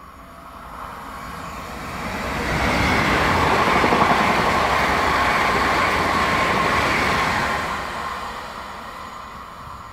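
Pesa Dart ED161 electric multiple unit passing by on the track. The wheel and rail noise builds, stays loud for about five seconds as the cars go past, then fades away.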